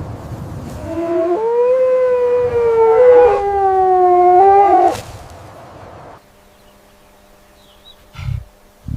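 An animal's long howl: one drawn-out call held at a nearly steady pitch for about three and a half seconds, then cut off abruptly; a low thump follows near the end.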